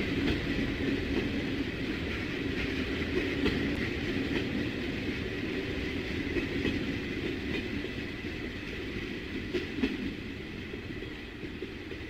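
Train running on rails: a steady rumble with a few light knocks.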